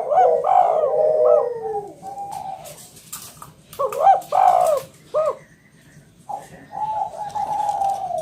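Spotted dove (tekukur jawa) cooing loudly: three phrases of deep coos, one at the start, one around the middle and one near the end, with short pauses between.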